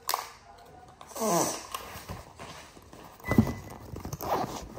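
A wired clip-on microphone and its cable being handled, with rubbing noise and a knock about three and a half seconds in. A short wordless voice slides down in pitch a little over a second in.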